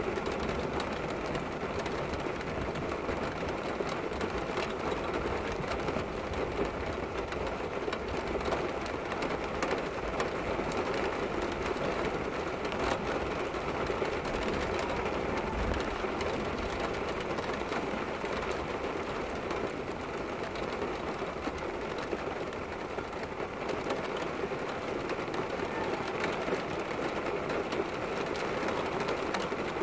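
Heavy storm rain falling steadily: a dense, even rush of drops that never lets up.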